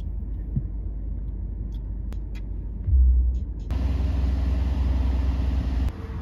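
Steady low road rumble inside a car's cabin while driving; about three seconds in it swells loudly, and soon after gives way to a louder steady hum with hiss that drops away near the end.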